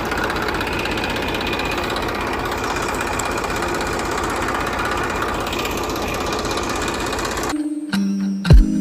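A small motor running steadily with a fast, dense rattle. It cuts off near the end.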